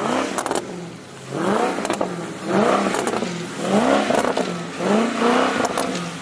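Car engine revved in short repeated bursts, about five rises and falls in pitch roughly a second apart, typical of rocking and spinning the wheels to free a car stuck in snow.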